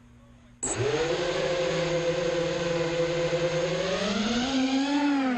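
FPV racing quadcopter's brushless motors spinning up abruptly about half a second in, a steady high whine with many overtones. Near the end the pitch climbs and wavers as the throttle is worked for takeoff.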